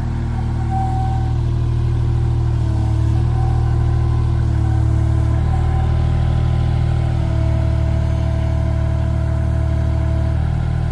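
Small loader's engine running steadily under load while its pallet forks lift a crate weighing nearly 1,000 pounds, with higher steady tones over the engine that shift in pitch a few times.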